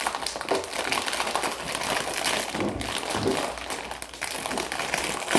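Plastic snack bag crinkling continuously as it is handled and opened, a rapid run of crackles.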